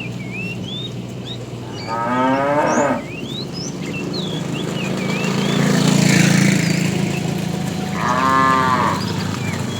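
Cows mooing: two long moos, each about a second, one about two seconds in and one near the end. Birds chirp in the background.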